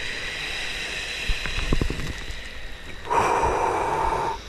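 A person in an ice bath breathing out hard through the mouth, controlled breathing against the ice-cold water: a hissing exhale, then about three seconds in a louder, longer exhale with a steady whistle in it.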